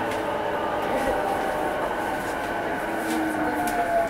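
A JR East E233 series electric train running along the line, with a steady wheel-and-rail noise, several thin whining tones, and a few faint clicks. Near the end, one of the whining tones falls slowly in pitch.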